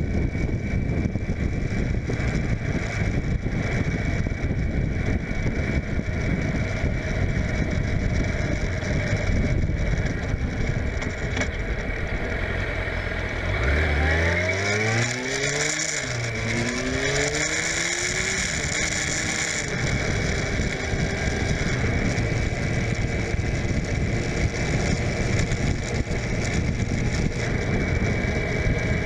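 Suzuki GSF600 Bandit's inline-four engine heard through heavy wind noise on the microphone while riding. About halfway through, the engine note rises as the bike accelerates, drops back at a gear change and rises again. It then sinks back under the wind.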